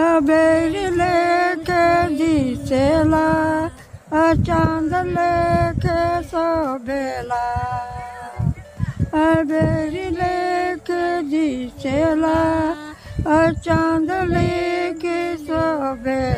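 Unaccompanied singing by a single voice: a slow melody of long held notes that slide between pitches, broken by short pauses for breath.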